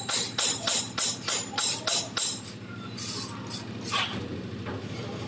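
Music with a rhythmic tambourine-like jingle, about two and a half shakes a second, that stops a little over two seconds in, over a steady low hum.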